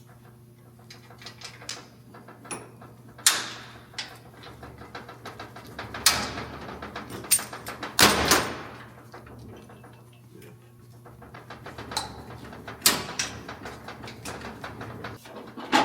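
Scattered metal clanks and knocks of tools and suspension parts being handled during work on a car's air-bag suspension, the loudest strikes about three, six, eight and thirteen seconds in, over a steady low hum.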